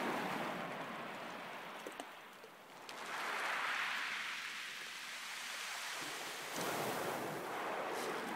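Small waves washing up a pebble beach, the foaming rush of water swelling three times, at the start, about three seconds in and near seven seconds, with a few faint ticks of pebbles.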